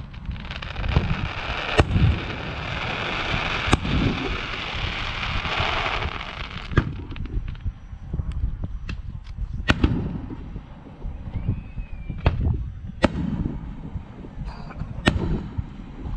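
Aerial firework shells bursting in a public display: about seven sharp bangs a second or few apart, with low rumbling between them. A steady hiss runs through the first six seconds or so.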